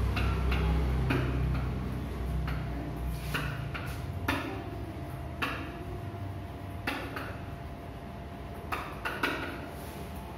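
Felt-tip marker writing on a whiteboard: a series of short, irregular scratchy strokes and taps as letters are drawn, over a low steady hum.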